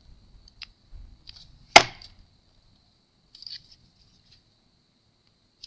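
Small clicks and taps of a laptop power button and its little circuit board being pressed and seated in the plastic frame, with one sharp click a little under two seconds in. The button is being tested to make sure it clicks in and out freely after the bent frame was straightened.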